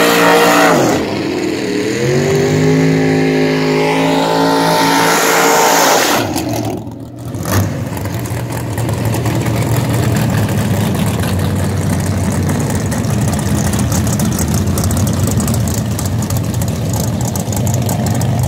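Drag race car engines at the starting line: an engine revved hard, dipping about a second in, then held at high revs for about five seconds as in a burnout, cutting off near 6 s. From about 7 s a race engine idles loud and rough with rapid exhaust pulses.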